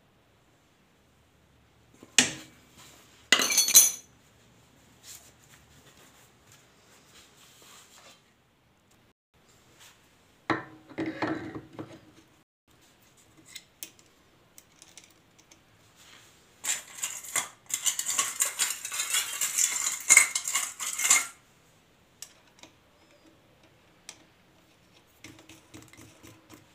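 Metal hand tools and engine parts clinking and rattling against each other in several bursts, with a longer run of dense clattering past the middle and single light ticks in between.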